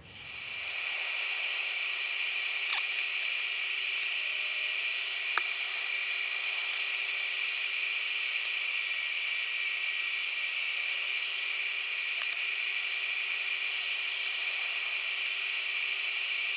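A steady hiss with a faint low hum under it and a few light ticks.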